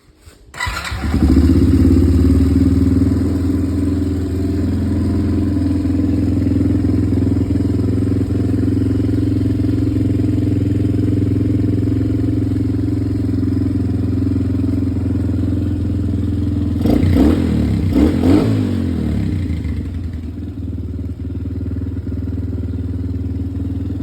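Honda TRX90 ATV's small four-stroke single-cylinder engine, fitted with a TB114 big bore kit, starting about half a second in and settling into a steady idle. There are two short throttle blips about three quarters of the way through, then it idles on a little lower. It is being run to circulate the fresh oil before the level is checked.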